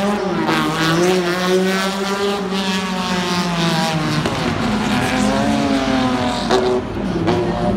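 Historic rally car's engine revving hard, its pitch rising and falling with the throttle. The pitch drops about four seconds in and picks up again sharply near the end.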